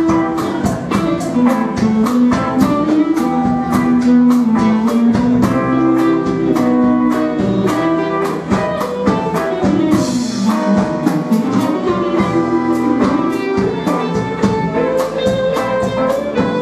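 Live band playing: electric guitars and bass over a drum kit keeping a steady beat, with a cymbal crash about ten seconds in.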